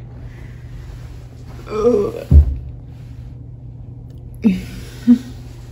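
A woman's short throaty vocal sound, an "ugh", about two seconds in, ending in a sharp low thump. Two brief vocal sounds follow near the end.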